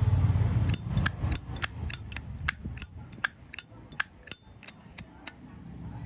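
Zippo lighter's hinged lid being flicked open and snapped shut over and over: a quick run of sharp metallic clicks with a bright ring, about three or four a second, stopping a little after five seconds in. A low rumble of handling comes before the clicks.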